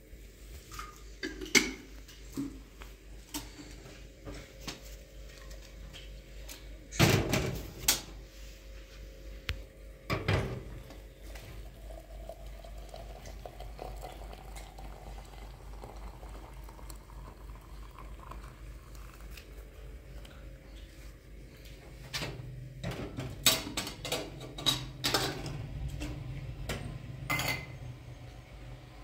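Scattered clinks and clattering knocks, like tableware being handled, over a low steady hum. There is a burst about a second and a half in and louder knocks around seven and ten seconds in. A busier run of clatter fills the last several seconds.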